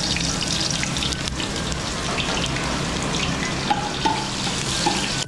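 Sliced onions sizzling and crackling steadily as they fry in desi ghee in a large metal pot, stirred with a spoon.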